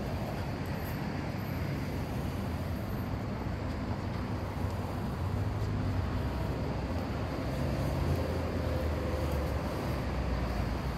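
Steady street traffic ambience: a continuous low rumble of vehicles on a city road, with no single event standing out.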